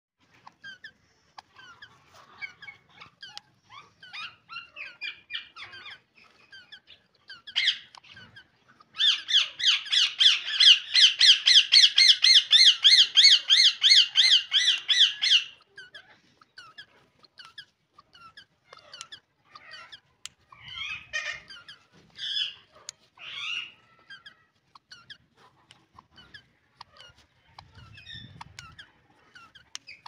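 Rose-ringed parakeets giving soft, high squeaky chatter, broken by a loud run of rapid repeated calls at about five a second that lasts some six seconds from about nine seconds in, and a few louder single calls later on.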